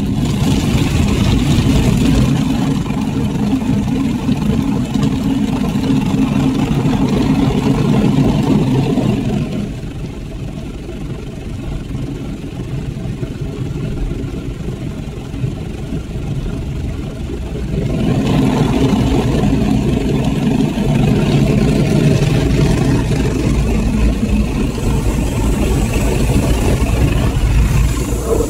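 Automatic car wash heard from inside the car: a loud, steady rumbling swish of the machine scrubbing the soaped car. About ten seconds in it drops to a quieter rush while water streams over the windscreen, then the louder scrubbing returns about eight seconds later.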